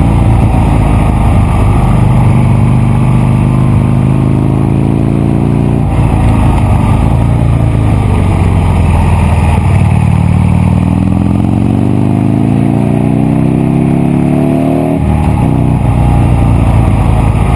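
Buell Lightning XB9 SX's 984 cc V-twin engine running under load. Its pitch holds steady, dips about six seconds in, then climbs steadily from around ten seconds and breaks off abruptly at about fifteen, as in a gear change, before settling again.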